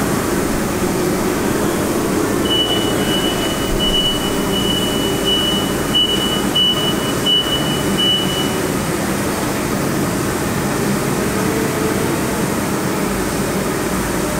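Crankshaft balancing machine spinning an engine crankshaft on a measurement run, a steady mechanical running noise. A run of evenly spaced high beeps, roughly one a second, sounds for several seconds in the first half.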